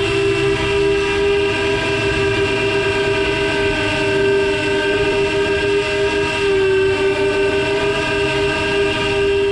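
Quadcopter motors and propellers whining at a steady pitch in cruising flight, with rushing air noise underneath. The pitch wavers only slightly.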